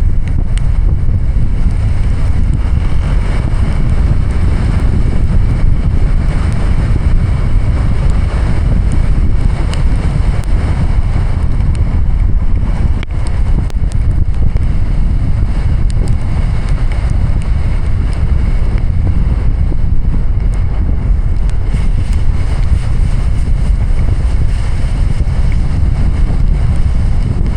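Heavy rain and wet-road tyre noise from a car driving through a downpour: a loud, steady rush of noise, heaviest in the low end.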